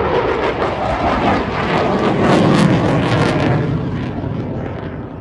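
Eurofighter Typhoon's twin Eurojet EJ200 turbofans as a loud rushing jet noise from a flypast. It builds to its loudest two to three seconds in, then fades as the jet moves away.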